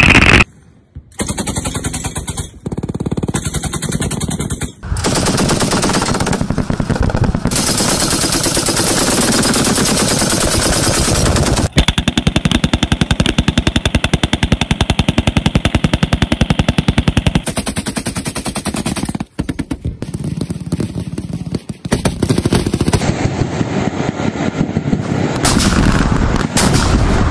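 Automatic weapons firing in long, rapid bursts of sustained fire, with a few short breaks.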